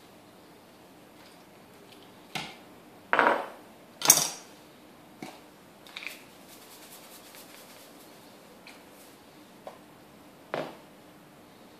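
Several separate clinks and knocks of kitchen items (a knife, a small glass jar, salt and pepper shakers) being picked up and set down on a tiled countertop, the loudest about four seconds in.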